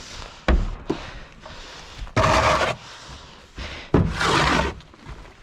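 A snow shovel scraping and scooping snow in three strokes, each starting sharply and lasting about half a second.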